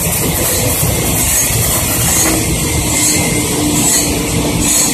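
Stick welding with a 1/8-inch 7018 rod: the arc crackles and hisses steadily. Music plays faintly underneath.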